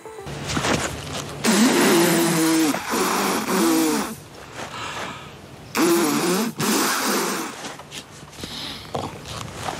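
A man blowing and spluttering through pursed lips, in about five bursts with wavering pitch.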